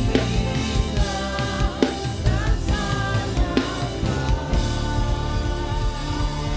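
Live gospel praise music: a band with drum kit playing under singing voices, with one long held note over the second half.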